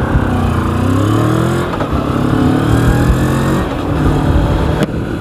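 Moto Morini X-Cape 650 motorcycle's parallel-twin engine accelerating under way. Its pitch climbs, drops at a gear change about a second and a half in, then climbs again more slowly, with wind rush on the helmet microphone.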